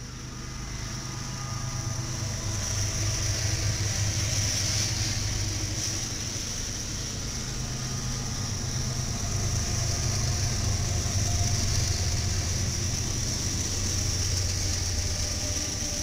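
Several BNSF diesel-electric freight locomotives passing close by: a steady low engine drone that swells over the first few seconds as they come alongside, with a high hiss above it.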